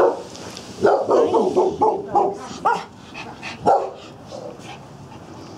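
Dogs barking: a quick run of about eight barks, then one more bark about a second later.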